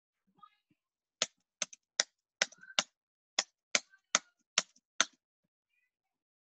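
Computer keyboard keys being tapped: about ten sharp, separate clicks at a slow, fairly even pace over about four seconds.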